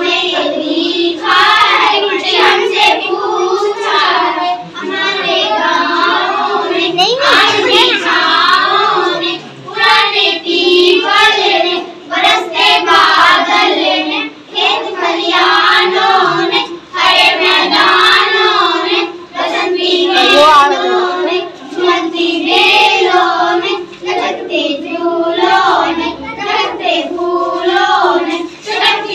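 A group of young girls singing a song together, one of them into a handheld microphone, in continuous sung phrases with short breaks for breath.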